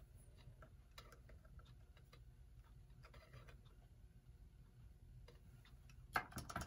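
Faint, irregular small clicks and taps of small metal clock parts being handled while the nut holding the hands is tightened, with a louder cluster of clicks near the end.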